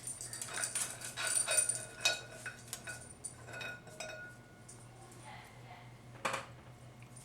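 Small metal parts of a 4L60E transmission input drum clinking and clattering as they are handled and set down. Several clinks ring briefly, and there is one louder knock about six seconds in.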